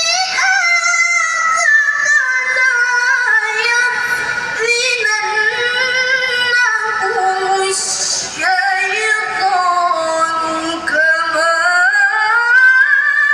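A woman's voice in melodic Quranic recitation (tilawah), holding long ornamented notes that glide up and down. The phrases are broken by a few short breaths.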